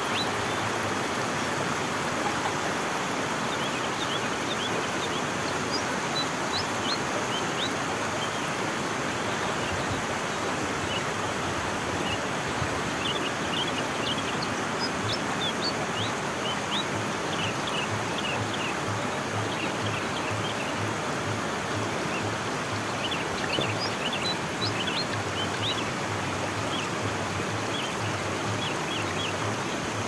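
Steady rush of running water in a small stream, with many short, high bird chirps scattered over it and growing more frequent in the second half.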